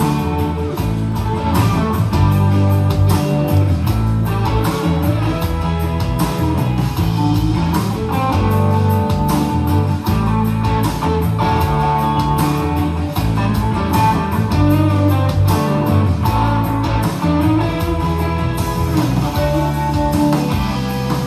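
Guitar-led music played loud through a Pioneer PBM5 portable party speaker, turned up to around 80 percent volume, with a heavy, steady bass line.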